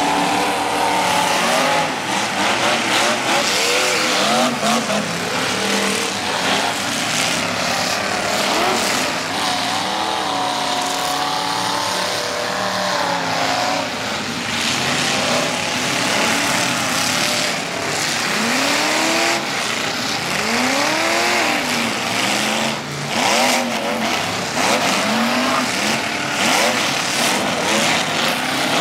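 Several figure-8 race cars' engines revving up and down on a dirt track, their pitch rising and falling over and over as they accelerate and back off, over a steady noisy hiss.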